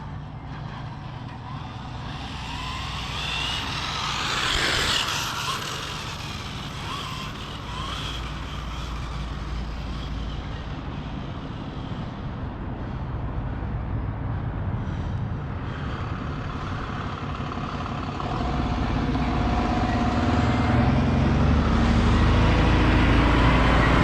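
Road traffic passing: a vehicle goes by about four to five seconds in. Then a lorry's diesel engine draws near and grows steadily louder through the second half.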